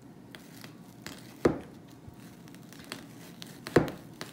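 Kitchen knife slicing slowly through an onion, the blade knocking on the cutting board twice, about two seconds apart, with faint small clicks between.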